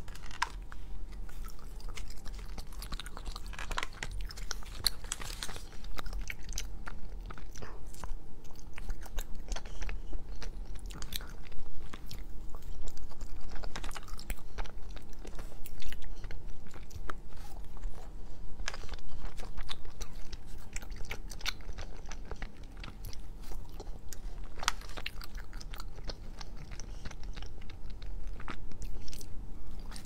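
Close-miked chewing and biting of soft cocoa-dusted chocolate pieces, with many short wet mouth clicks and smacks throughout, over a faint low hum.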